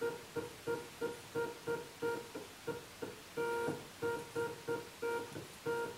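Motor of a homemade antenna tracker humming in short, stop-start bursts at one steady pitch, a few times a second, as it nudges the tracker back and forth in small corrections. The jitter follows noisy, unstable position data.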